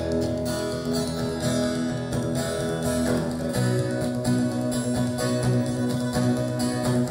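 Acoustic guitar strumming a steady chord backing in E major, a practice track to solo over. The chord changes about three and a half seconds in.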